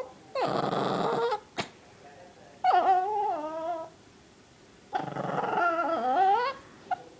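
Small dog making three drawn-out growling, whining grumbles, each a second or more long with a wavering pitch, and a sharp click between the first two. The dog is annoyed.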